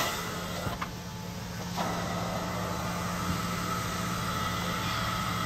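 Truck-mounted hot-water extraction carpet-cleaning machine running with its vacuum on: a steady mechanical drone, joined by a higher steady whine about two seconds in.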